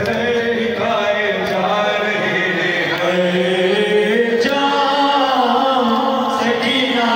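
Several men chanting a noha, a Shia lament, together without instruments, sung into microphones in a slow, continuous melodic line.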